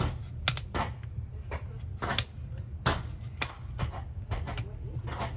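Sharp, irregular clicks and snaps, about two a second, of a farrier's steel hand tools (hoof nippers) working on a horse's hoof, over a steady low hum.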